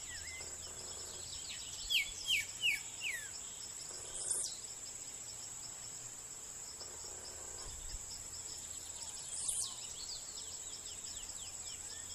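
Steady high-pitched insect trilling, with bird calls over it: four short descending chirps about two seconds in, and a quick rising call about four and a half and nine and a half seconds in.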